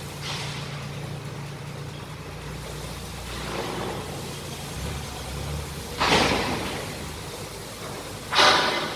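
Steady low hum of running machinery, with several short hissing rushes that fade out, the loudest about six seconds in and another near the end.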